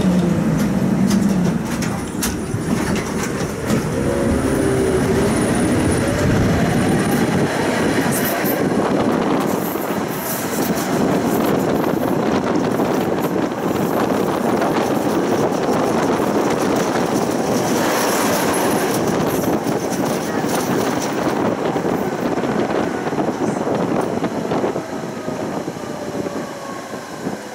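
Electric tram running along its track, heard from on board: steady rumble of the wheels on the rails with the traction motors' whine gliding up and down, getting quieter near the end as the tram slows.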